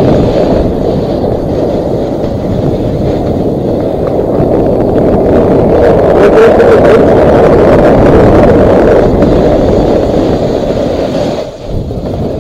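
Steady rushing wind noise on an action camera's microphone while snowboarding downhill, mixed with a snowboard scraping over packed snow. It dips briefly near the end.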